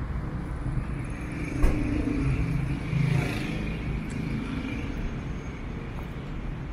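Street traffic: a steady low rumble of motor vehicles, with a sharp knock a little under two seconds in and a vehicle passing close by about three seconds in.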